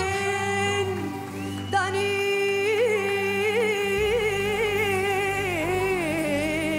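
A woman singing a classical Arabic song over instrumental accompaniment, holding long notes with wide vibrato and melismatic turns.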